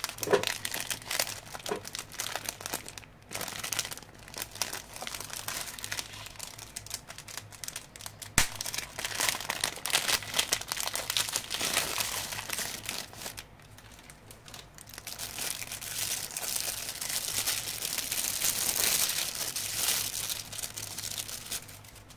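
Packaging being unwrapped and handled, crinkling in long stretches with a short lull about two-thirds of the way through and one sharp click about eight seconds in.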